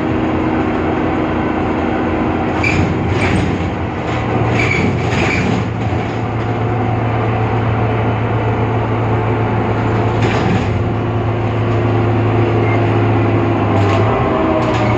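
Irisbus Citelis CNG city bus with a Cursor 8 engine running, heard as continuous mechanical noise. A steady low drone sets in about four seconds in, and short high squeaks or rattles come now and then.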